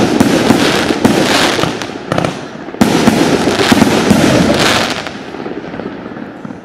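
A 108-shot fireworks cake firing a rapid volley of shots and bursting shells. After a short lull it starts again loudly about three seconds in, then dies away near the end.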